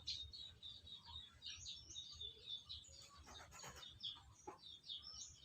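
Small birds chirping: many quick, overlapping high-pitched chirps, faint throughout, with a couple of short clicks a little past the middle.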